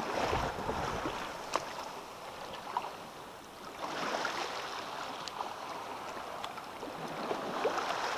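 Shallow seawater sloshing and lapping around hands and a sea trout held in the water for release, with a couple of faint clicks.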